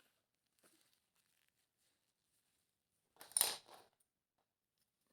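Near silence, then a short clatter with light clinks about three seconds in as a pair of eyeglasses is picked up off the floor.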